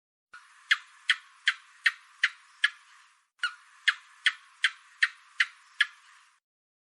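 Gecko chirping: two runs of sharp clicks, about six and then about seven, at roughly two and a half a second, with a short pause between the runs.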